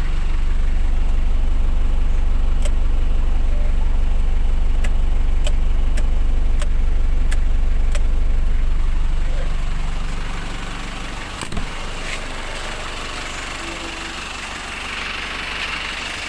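Nissan Urvan van's engine idling with a steady low hum, louder for the first ten seconds and then settling lower. In the middle come a series of sharp clicks, spaced a little over half a second apart, and a single knock follows near the two-thirds mark.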